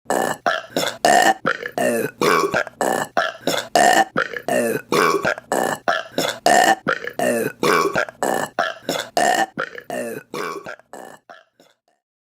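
A rapid run of women's burps in an even rhythm, two to three a second, fading out over the last couple of seconds.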